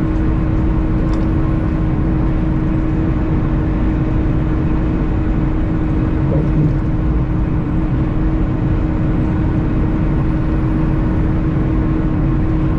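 Steady drone of a semi truck cruising at highway speed, heard from inside the cab: engine and road noise with a constant hum.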